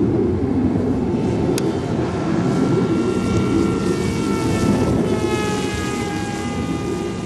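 Radio-controlled foam Mugi delta-wing plane's motor and propeller whining in flight, the pitch dropping from about five seconds in as it flies past. Underneath is a steady low rumble.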